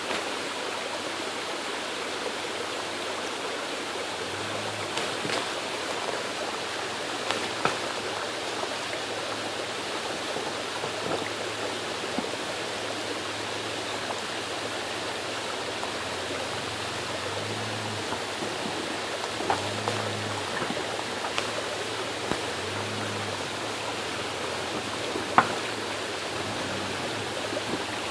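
Steady rushing hiss, like running water or wind, over which the Toyota Land Cruiser FZJ80's inline-six is faintly heard at low revs, swelling in short throttle blips as it crawls over boulders. A few sharp knocks, the loudest near the end, as tyres and rocks strike.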